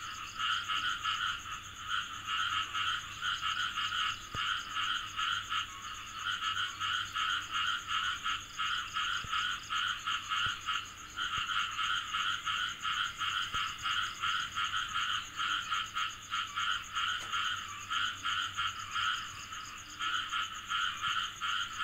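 A chorus of many frogs calling in rapid, pulsing croaks that overlap almost without a break, with a steady high whine above them.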